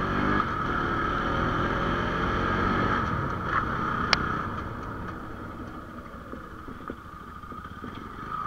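Bajaj Pulsar 220 single-cylinder engine running as the motorcycle rides a rough dirt track, with a single sharp click about four seconds in. The engine sound gets quieter over the second half as the bike slows down.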